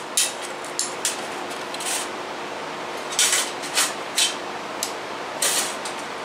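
Light metal clinks and knocks as small aluminum plates and a piece of steel angle iron are handled and set against each other on a steel welding table, with a locking clamp being picked up. About seven separate knocks over a steady background hiss.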